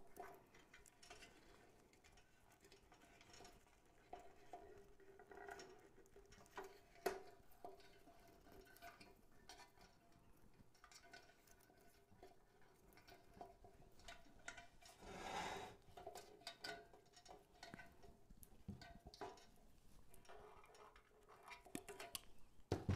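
Near silence with faint handling sounds: floral wire being twisted into artificial pine greenery, small rustles and light clicks, with one sharper click about seven seconds in and a brief rustle about fifteen seconds in.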